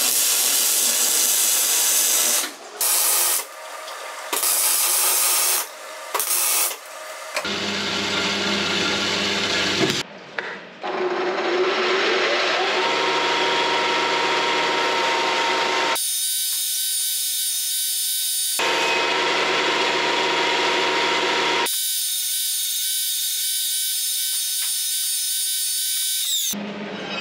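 Metalworking power tools in a run of abruptly cut clips. For the first several seconds there is stop-start harsh noise. About twelve seconds in, a motor spins up with a rising whine and then runs steadily.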